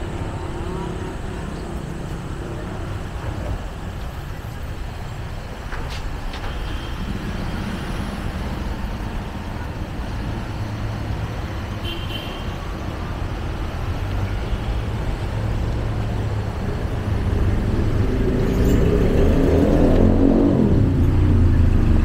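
Street traffic: motor vehicles running along the road, with one engine growing louder over the last few seconds as it comes close.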